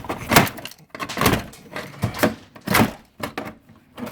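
Crowbar prying a stubborn motherboard out of a computer case: a series of sharp knocks and cracks, about one a second, as the bar levers against the board and the metal case.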